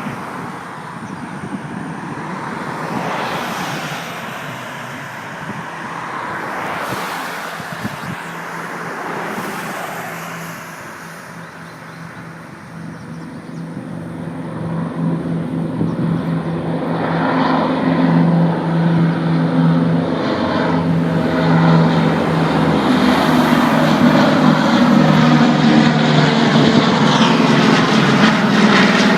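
B-29 Superfortress's four radial engines droning. After a dip about twelve seconds in, the engine sound grows steadily louder to the end as the bomber comes nearer under power.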